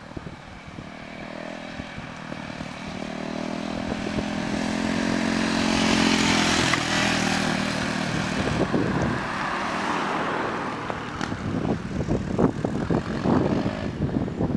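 Husqvarna Vitpilen 401's single-cylinder engine in a drive-by: it grows louder as the bike approaches, is loudest about six seconds in as it passes together with a car, then fades as it rides away. Wind gusts on the microphone in the last few seconds.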